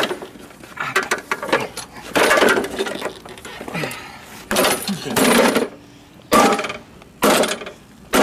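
A green push lawn mower's recoil starter cord being yanked again and again, each pull a short rattling whirr, about one a second later on. The engine does not catch.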